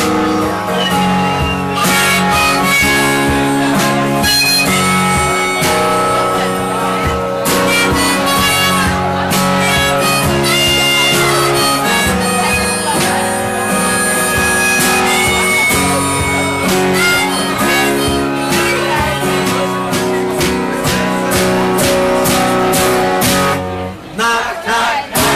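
Harmonica in a neck rack played together with an acoustic guitar by one performer, long held reed notes over the guitar. The tune stops about a second before the end and a crowd starts cheering.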